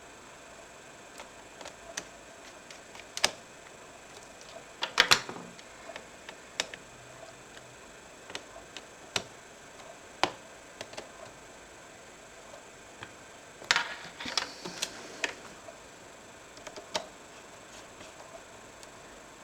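Scattered clicks and taps of laptop casing parts and small tools being handled, with two short flurries of clicking, one about five seconds in and another around fourteen seconds.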